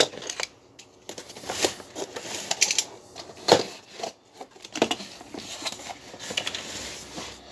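Cardboard box being handled and opened by hand: irregular scrapes, rustles and sharp knocks, the loudest about three and a half seconds in.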